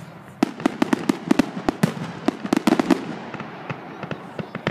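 Fireworks going off in a rapid string of sharp bangs and pops, packed closely for about the first three seconds and then thinning out.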